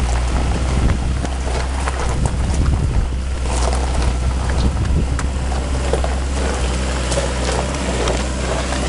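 A vehicle driving on a rough gravel road: a steady low engine rumble, wind buffeting the microphone, and scattered clicks and rattles of stones and gravel under the wheels.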